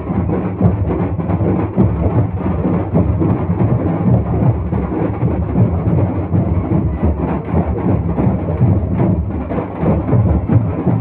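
Loud, rumbling din of drumming, heavy in the low end and distorted on the microphone, with close-packed beats and no break.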